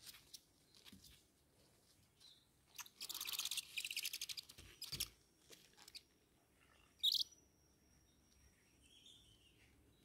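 Owl chicks calling. About three seconds in comes a rasping, rapidly pulsed call lasting nearly two seconds. Later there is a short sharp call, and near the end a thin chirp that rises and falls.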